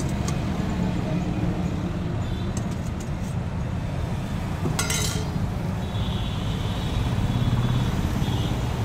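Steady traffic rumble from a busy road, with a few clinks of a steel ladle against steel serving pots, the sharpest about five seconds in.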